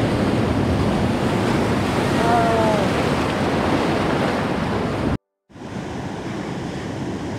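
Heavy surf breaking and washing over a beach of rounded boulders, with wind buffeting the microphone. The sound cuts out for a moment about five seconds in, then the surf carries on a little quieter.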